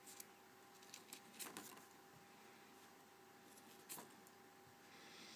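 Paper pages of a spiral-bound notepad being handled and turned: faint rustles and light taps, with the clearest ones about a second and a half in and again at about four seconds.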